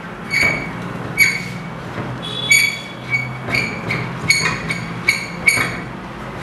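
Short metallic clinks with a bright ringing tone, about ten at irregular intervals, as the long threaded metal rod of a screen stretcher's tension knob is turned and pushed through the holes of the metal clamp bar, knocking against the brackets.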